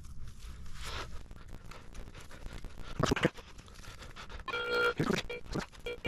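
Soil being dug and scraped with a few crunchy strokes, and a metal detector sounding a brief steady tone about four and a half seconds in, then a few short beeps near the end.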